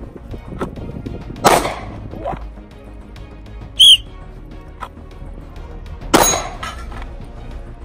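Two handgun shots, each a sharp crack with a brief ring-off, about five seconds apart. Between them comes one short, shrill whistle blast, the start signal for a draw and a single shot, and the second shot follows it about two seconds later.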